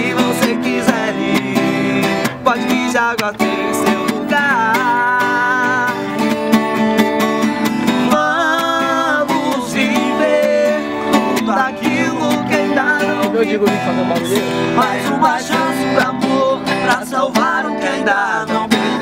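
Strummed steel-string acoustic guitar accompanying two male voices singing a sertanejo duet in Portuguese.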